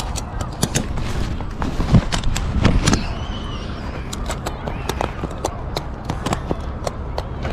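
Irregular sharp clicks, clanks and rattles from a loaded junk trailer and its tie-down straps, with a couple of heavier knocks about two to three seconds in, over a steady low rumble.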